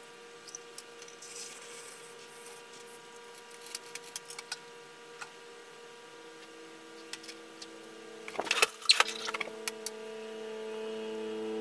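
Light clicks and clatter of objects being handled, with a short burst of louder rattling knocks about two-thirds of the way in, over soft sustained background music whose chord shifts about halfway through.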